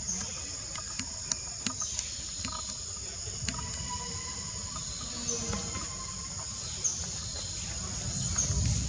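Steady high-pitched drone of forest insects, with a run of sharp clicks in the first few seconds and a few brief high chirps over it.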